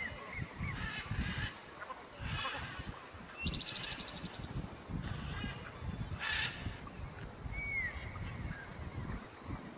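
Birds calling: a short rapid trill and, near the end, a single whistled note, with honk-like calls, over irregular low rumbling and water sloshing.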